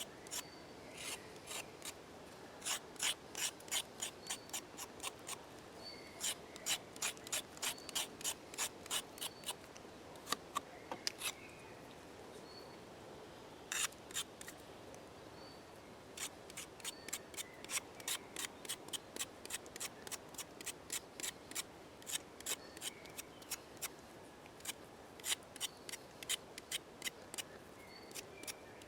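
Blade of a Cold Steel Recon 1 Tanto folding knife scraping the skin off a carrot, in runs of quick strokes about three or four a second with short pauses between runs.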